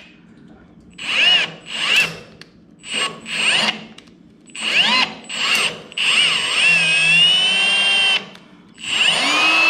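Power drill, clutch turned down, running a 10-32 tap into thin metal at slow speed: about six short trigger pulses, the motor whine rising in pitch as each one starts, then two longer steady runs in the second half.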